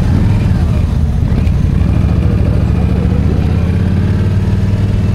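Yamaha V Star 1300's V-twin engine running steadily as the motorcycle rides along at low street speed, heard from the rider's seat.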